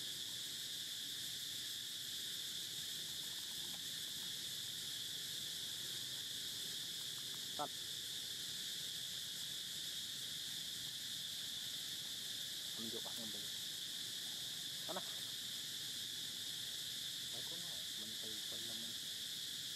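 Steady high-pitched drone of insects in the surrounding vegetation, even and unbroken. A sharp click about eight seconds in, and a few brief faint vocal sounds in the second half.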